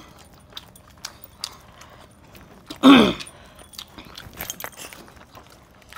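A person eating a large chicken by hand: small wet clicks and smacks of chewing and pulling meat off the bone. About three seconds in, a short loud vocal sound whose pitch falls.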